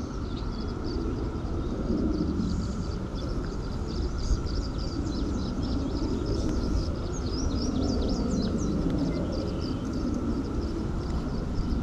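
Small birds chirping in quick, repeated high calls over a steady low rumble and a faint steady hum.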